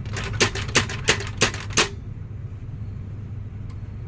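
HP LaserJet P1102 laser printer clicking: a quick run of sharp ticks, about three a second, stopping about two seconds in, over a steady low hum.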